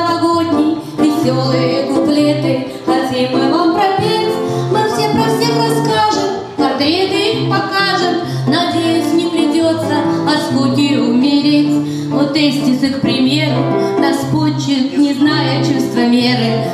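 A woman singing a song into a microphone, accompanied by a strummed acoustic guitar with a steady pattern of bass notes.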